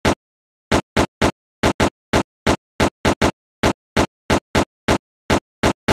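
Typing sound effect: single sharp keystroke clicks, one per letter, irregularly spaced at about three a second.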